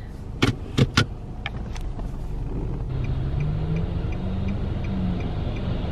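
An automatic car's gear lever clicks sharply several times as it is moved into gear. The engine then runs and rises steadily as the car moves off, with a light, even ticking a little over twice a second.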